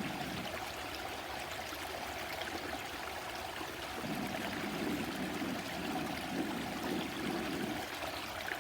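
A stream running steadily, a continuous rush and trickle of flowing water.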